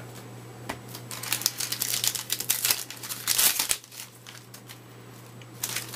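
Crinkling and crackling of a trading-card pack's foil wrapper being handled and torn open, a dense run of crackles lasting about three seconds, then lighter handling with a click near the end.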